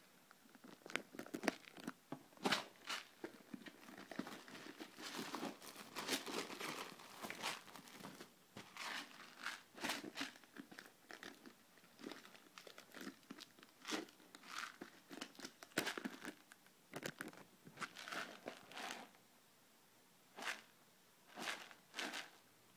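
Foil seal of a plastic moisture-absorber tub being cut and torn open with a knife, with foil crinkling and the plastic tub clicking and rustling as it is handled. Irregular crackles throughout, thinning to a few separate clicks near the end.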